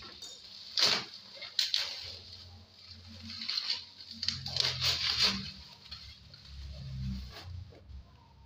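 Bubble wrap and packing tape being pulled and torn away by hand: crinkling plastic with sharp crackles, loudest about a second in and again in a cluster around four to five seconds in, over low handling bumps.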